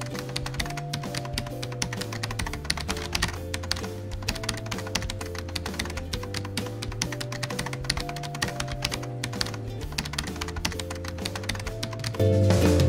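Rapid keyboard typing clicks, a sound effect for on-screen text, over soft background music with sustained bass notes. About a second before the end, the music gets louder and fuller, with drums.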